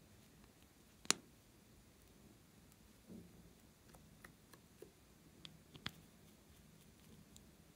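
A few faint, sharp clicks and taps of a small plastic toy capsule and figure being handled by fingers, the sharpest about a second in and another near six seconds, over near-quiet room tone.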